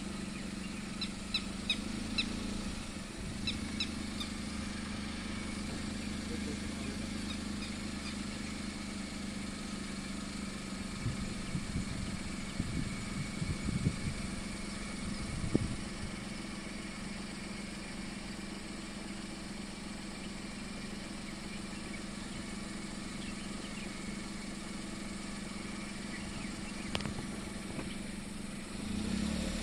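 A vehicle engine idling steadily, with a few short high chirps in the first few seconds and some low bumps around the middle.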